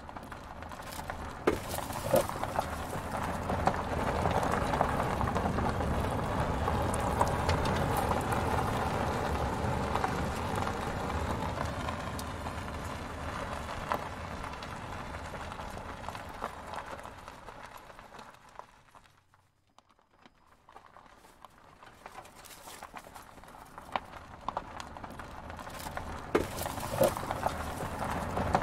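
Plastic wheels and drum of a toy road roller grinding and crunching over coarse damp sand as it is pushed back and forth by hand, with scattered small clicks. The noise swells and fades, falls almost silent about two-thirds of the way through, then builds again.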